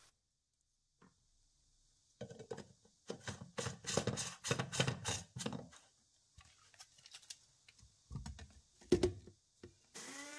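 Dried, brittle herb leaves crackling and rustling as they are dropped and pressed by hand into a plastic grinder cup, followed by plastic clicks and knocks as the cup is fitted onto the grinder base. Near the end the small electric grinder's motor starts, its whine rising briefly and then holding steady.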